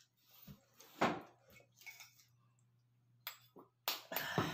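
Dishes and utensils clinking and knocking as they are handled at the table: a sharp knock about a second in, then a cluster of clinks near the end.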